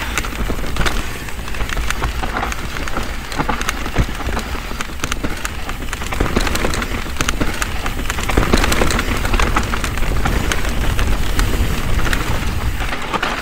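Mountain bike riding fast down a dirt singletrack: a steady rush of tyre and wind noise over a low rumble, broken by many quick clicks and clatters as the bike rattles over roots and rocks.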